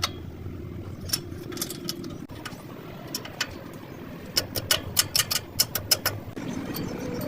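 A steady low engine-like drone with sharp metallic clicks and taps over it, coming in a quick run of about five or six a second between about four and six seconds in.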